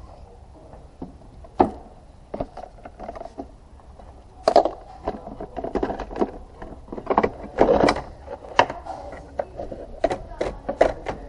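Irregular plastic knocks, clatter and scraping as the Mazda CX-5's air filter housing cover and intake duct are handled and set in place, with a few sharper knocks, the loudest about halfway through.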